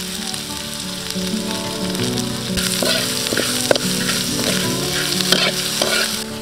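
Sliced lemongrass, chilies and garlic sizzling in hot oil in a steel wok. From about two and a half seconds in they are stirred and tossed, and the sizzle grows louder, with a few sharp clicks of the metal spatula against the wok.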